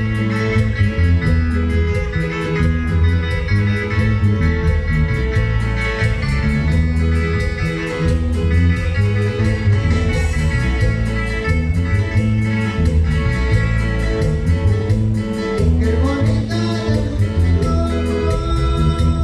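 Loud dance music with guitar and a deep bass line, its bass changing notes in a steady pattern.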